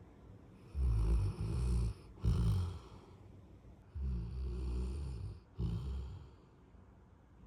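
Golden retriever snoring: two snoring breaths about three seconds apart, each a long snore followed by a shorter one.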